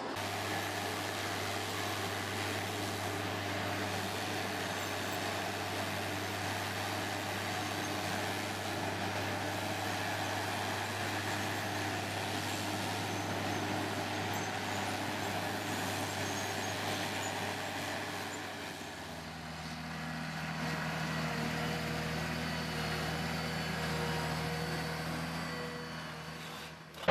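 A large engine running steadily under a wash of mechanical noise. About two-thirds through, after a brief dip in level, its note changes to a higher, different steady hum.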